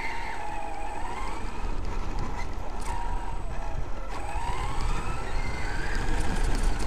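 Traxxas X-Maxx RC monster truck's brushless electric motor and drivetrain whining, the pitch rising and falling with the throttle, over a rumble of its tyres on a gravel path.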